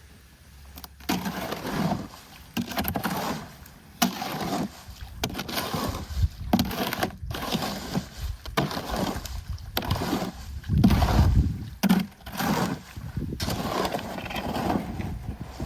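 Wet concrete being mixed by hand in a wheelbarrow: repeated sloshing, scraping strokes about once a second, with a few sharp knocks.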